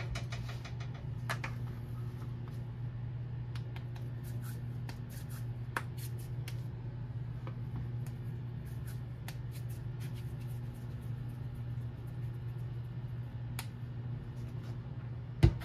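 Soft taps and small clicks of hands pinching off and working a ball of wheat dough, with a sharper knock near the end, over a steady low hum.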